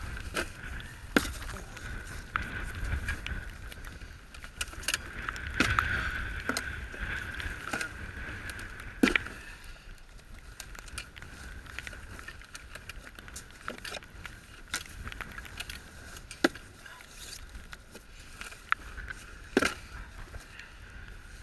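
Scattered knocks and clatter of goose decoys and their stakes being handled and packed, over a low rumble.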